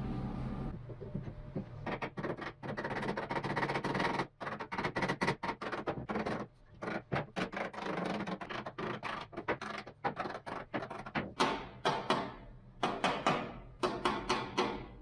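Hand-tool work on wood: a rapid, irregular run of short scraping strokes, after a brief steady hum that stops under a second in.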